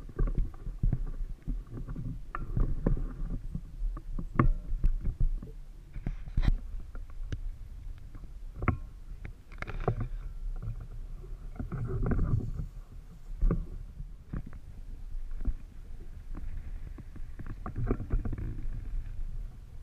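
Water lapping and slapping against the hull of a small boat over a steady low rumble, with scattered knocks and clicks throughout and a few louder swells of splashing noise.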